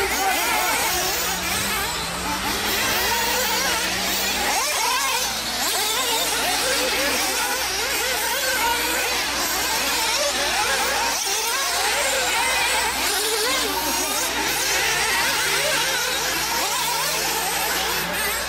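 Several radio-controlled 4x4 off-road buggies racing together, their motors whining and revving up and down in a steady overlapping din as they accelerate and brake round the track.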